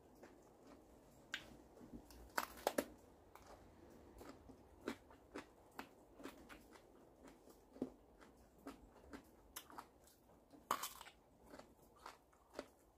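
A person chewing and biting into crunchy food: soft, irregular crunches and mouth clicks, with louder crunches a couple of seconds in and again about eleven seconds in.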